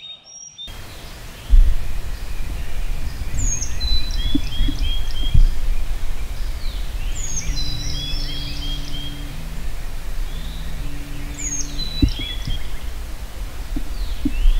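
A songbird sings the same short phrase every few seconds: a high downward slur, then a quick row of lower notes. Under it is a steady low rumble with a few soft knocks.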